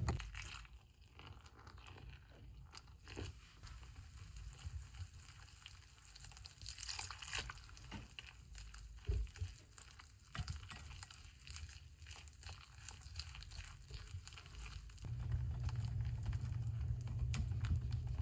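Faint scattered clicks, taps and crackles of batter being mixed in a bowl, over a low hum that gets louder about three-quarters of the way through.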